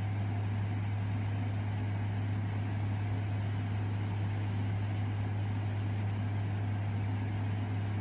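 A steady low hum over a continuous hiss, unchanging throughout.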